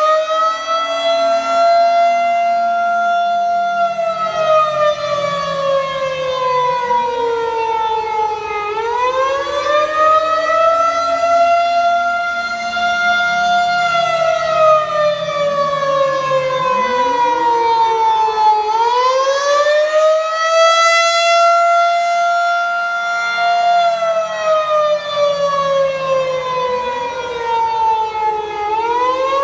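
Federal Signal 2001-130 rotating outdoor warning siren sounding the attack (wail) signal. Its pitch climbs quickly, holds for a few seconds, then slides slowly down, and this repeats about every ten seconds, with new rises about a third of the way in, about two-thirds of the way in and near the end.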